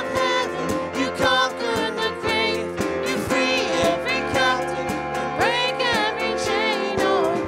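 Worship band performing a contemporary praise song: male and female vocalists singing together over a stage keyboard, with a steady beat.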